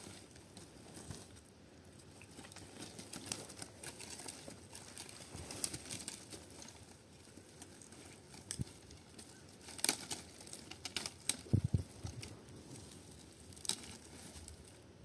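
Irregular crackling, rustling and sharp knocks, with a cluster of louder cracks about ten seconds in and a dull thump just after.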